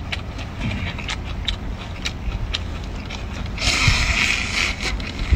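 A man slurping and eating a mouthful of wakame seaweed salad, with a loud sucking slurp about three and a half seconds in, over small chewing clicks and a steady wind rumble on the microphone.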